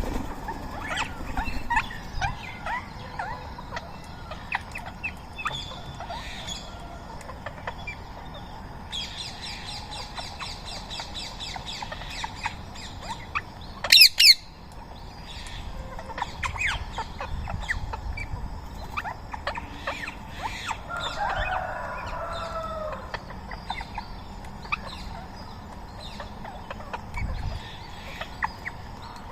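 Rose-ringed parakeets and other birds calling, with many short chirps and squawks throughout. A rapid trill of evenly spaced notes runs about a third of the way in, and two loud, harsh screeches come about halfway through.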